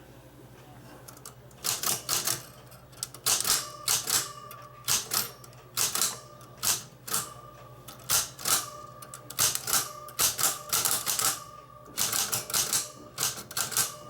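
Vintage Remington typewriter being typed on: sharp key strikes clatter in quick, uneven runs with short pauses, starting about two seconds in.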